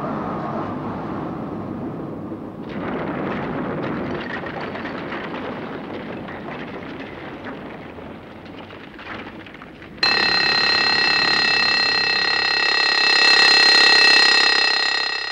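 A steady rushing noise, then about ten seconds in an alarm clock bell starts ringing suddenly and keeps ringing, swelling near the end before fading.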